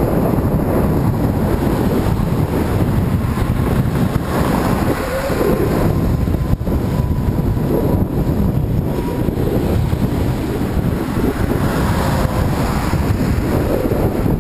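Wind buffeting a microphone on a moving bicycle, a loud, unsteady rumble, with road traffic going by.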